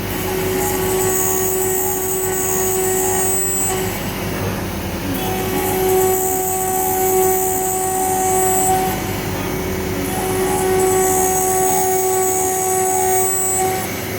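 CNC spindle at 24,000 rpm milling a 2 mm 5005 aluminium panel with a 3 mm single-flute end mill. The cutting gives a steady high-pitched hum that grows stronger and eases off in stretches of a few seconds.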